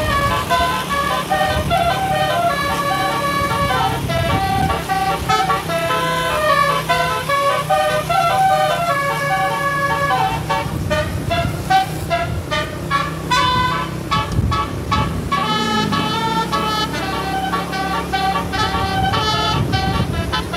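Bus telolet horn, a multi-note horn, playing a tune of changing notes, then from about ten seconds in switching to a quick run of short repeated blasts. The bus's engine runs underneath throughout.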